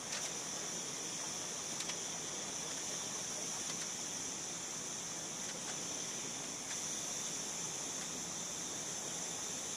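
Oxyacetylene torch flame hissing steadily as it heats a 3/8-inch aluminum rod to anneal it. A few faint clicks come through the hiss.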